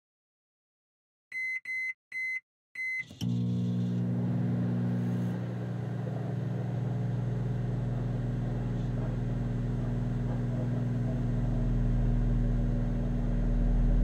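Microwave oven: four short keypad beeps, then the oven starts and runs with a steady electrical hum, a deep rumble building under it toward the end.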